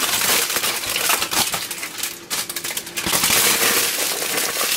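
Aluminium foil crinkling and crackling as it is rolled and pressed by hand around a whole eggplant.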